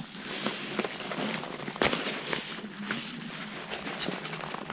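Rustling of backpack fabric and straps with small irregular clicks and scrapes as a curved carbon fiber frame rod is worked through its sleeve, with one sharper click about two seconds in.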